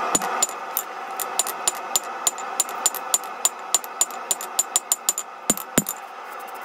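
Hand hammer striking hot steel on an anvil in a steady rhythm, about three blows a second, each with a short bright ring from the anvil, as the tip of a forged letter opener is flattened. A steady rush runs underneath.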